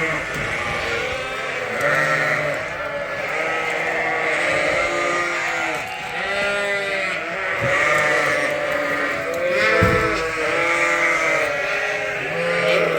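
Many bottle-fed lambs bleating over one another continuously, with a single sharp knock about ten seconds in.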